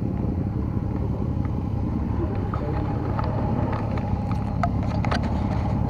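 Motorcycle engine running steadily at low revs, with a few faint clicks in the second half.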